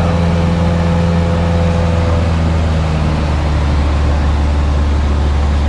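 Single-engine light airplane's piston engine and propeller droning steadily in flight; the pitch drops slightly about two seconds in.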